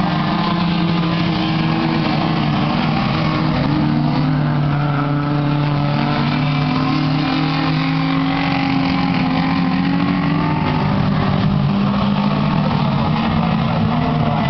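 A pack of speedway saloon race cars running hard around the oval, several engines at once, their overlapping notes rising and falling as the cars lap.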